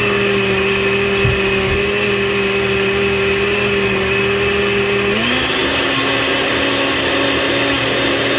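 Blender running continuously, puréeing a salsa verde; about five seconds in the motor's pitch steps up to a higher speed and holds there.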